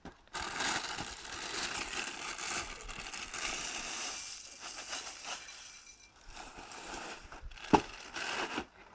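Corn flakes pouring from a cereal box's plastic inner bag into a bowl, the bag crinkling and the flakes rustling. The box is then set down with one sharp knock near the end.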